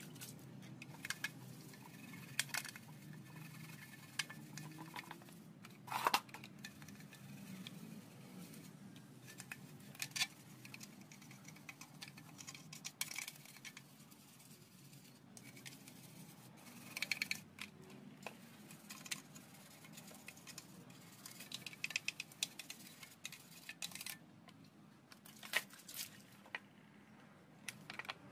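Hands handling and scrubbing a plastic motorbike headlamp housing and reflector in soapy water: scattered short scrapes, clicks and light knocks of plastic, with a sharper click about six seconds in.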